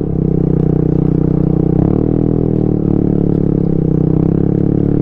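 TVS Ntorq scooter's single-cylinder engine running under load on a rough stony climb, its revs dipping and rising about two seconds in.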